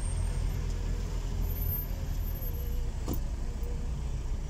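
Car engine and road noise heard from inside the cabin while driving in city traffic: a steady low rumble, with one brief click about three seconds in.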